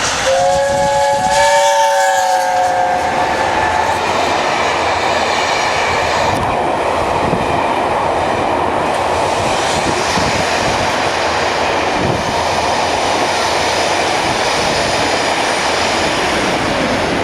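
A train sounds a chord horn for about three seconds, the notes sagging slightly in pitch, then runs on with a steady loud rumble and rattle of wheels on track.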